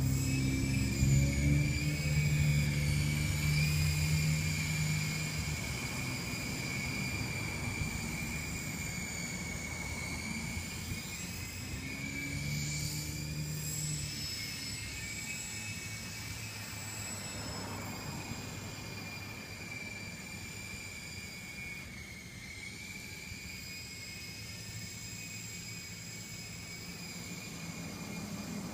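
Syma S033G radio-controlled toy helicopter in flight: a steady high whine from its electric motors over a low hum from the rotor blades. The hum is loudest during the first few seconds and again about twelve seconds in, and the sound eases off overall as the helicopter flies farther away.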